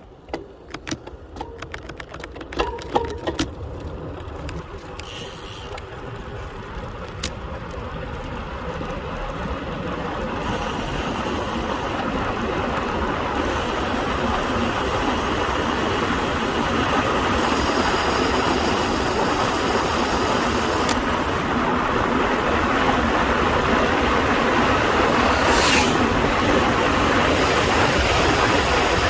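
Wind rushing over the microphone and tyre roar of a road bike picking up speed on a steep descent, growing steadily louder. A run of sharp clicks comes in the first few seconds.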